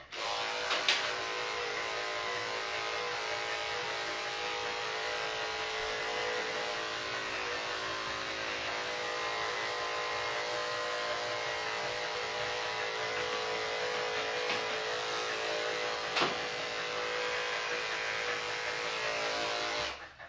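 Electric dog-grooming clipper switched on and running with a steady buzzing hum while trimming a dog's head, with a couple of brief clicks; it switches off near the end.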